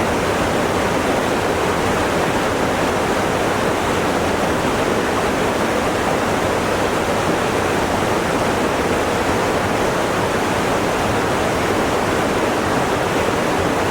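Steady rushing water: a continuous, even noise with no breaks or rhythm.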